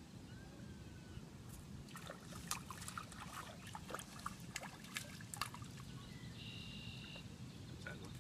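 Faint irregular splashing and dripping of a hooked fish thrashing at the water's surface as it is reeled in and lifted out, for a few seconds in the middle.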